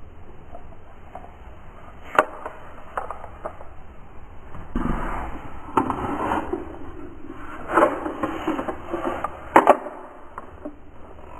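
Small plastic toy parts being handled on a hard surface: sharp clicks and knocks, with a longer stretch of scraping and rattling in the middle, as the orange plastic car launcher is picked up and worked by hand.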